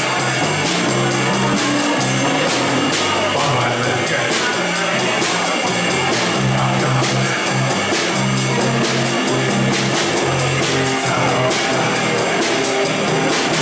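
Small live rock band playing: electric guitar, electric bass and drum kit, with a moving bass line under a steady drum beat.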